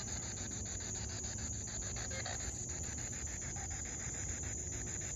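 Night insects trilling steadily in one continuous high-pitched chorus, with a low steady rumble underneath.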